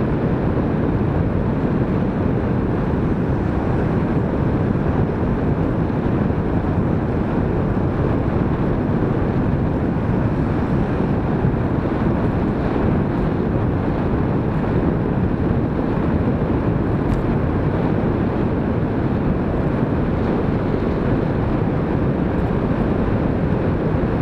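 Steady wind rushing over the microphone of a camera riding on a moving bicycle, an even, unbroken noise from riding at speed.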